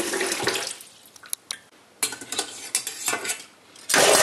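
Two metal forks clicking and scraping against a stainless-steel pot as coils of liver sausage are lifted from their cooking water, in light scattered clicks. Running water fades out in the first second, and a short loud rush of noise comes near the end.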